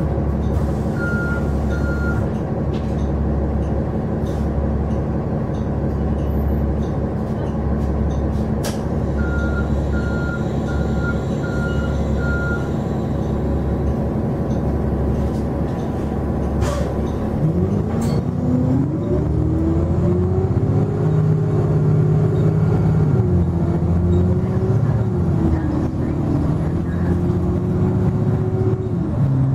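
Cummins ISL9 inline-six diesel of a Nova LFS city bus idling, heard from inside the bus, with two short runs of high repeated beeps. About 17 seconds in, the engine revs up as the bus pulls away, its pitch rising and dropping back a few times as the Allison automatic transmission shifts up through the gears.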